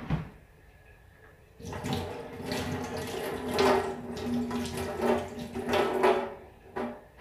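Kitchen tap turned on about one and a half seconds in, water running and splashing into a stainless steel sink as something is rinsed under it, then turned off near the end.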